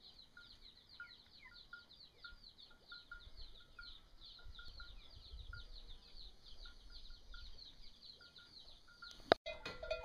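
Faint outdoor bird and insect calls: a high, rapid pulsing chirp repeating about five times a second, with scattered short chirps. A sharp click comes about nine seconds in.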